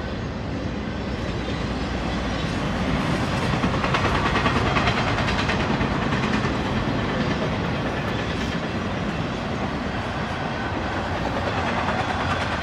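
Double-stack intermodal freight train's well cars rolling past: a steady noise of steel wheels running on the rails, a little louder around four seconds in.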